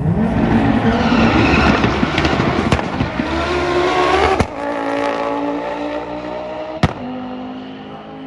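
A car engine revving hard and accelerating, its pitch rising for about four seconds, then dropping and running on more steadily as it fades. Three sharp bangs cut through it.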